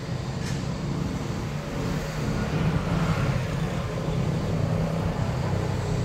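Street traffic: motor vehicle engines running, a steady low drone with a vehicle passing and swelling louder about two to three seconds in.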